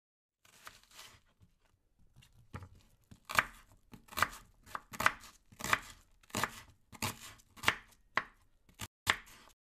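Knife chopping food on a cutting board in steady strokes, about one and a half a second, starting faint and growing louder.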